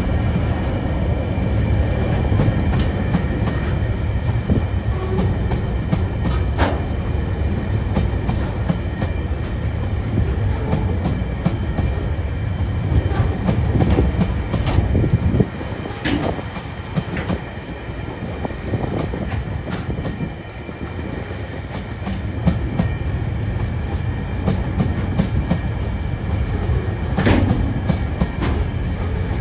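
Freight train of loaded container wagons rolling past: a steady rumble of steel wheels on rail, with clickety-clack and a few sharp knocks.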